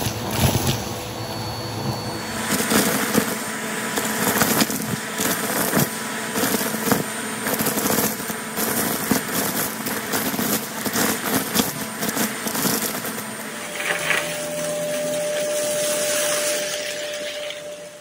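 Vacuum cleaner hose sucking dry macaroni and debris out of a shag rug, the pasta crackling and rattling up the hose in many quick hits. Towards the end the crackling stops, leaving a steadier suction hiss with a thin whine that fades out.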